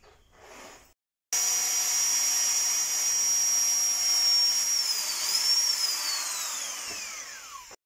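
Handheld electric drill with a combination pilot-hole and countersink bit drilling into a wall panel. It starts abruptly about a second in with a steady high whine, which wavers and then falls in pitch as the drill slows near the end, cutting off just before the end.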